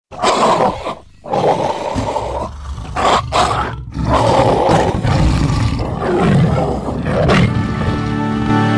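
An animal roaring loudly, in several long roars broken by short pauses. Music comes in near the end.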